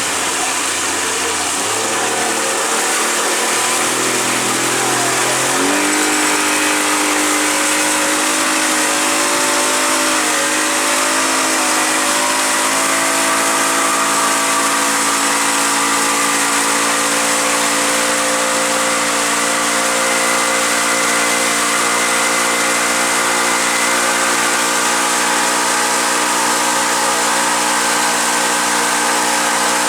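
Engine of the motorboat towing a banana boat, speeding up about six seconds in and then running steadily at speed over a steady hiss.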